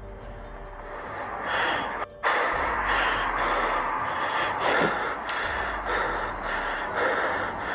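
A man breathing hard and fast, rasping breaths about two a second, with a short break just after two seconds in.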